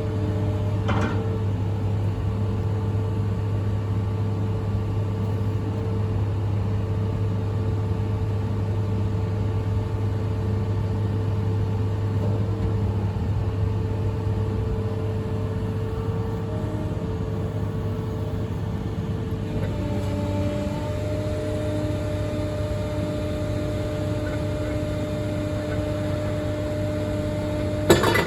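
Diesel engine of a Cat M318D wheeled excavator running at a steady speed, a constant low drone with a faint tone that changes pitch about two-thirds of the way through. A sharp knock near the end.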